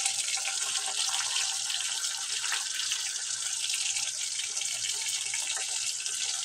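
Slices of pork luncheon meat sizzling in hot oil in a frying pan: a steady hiss with a constant scatter of small crackles and pops.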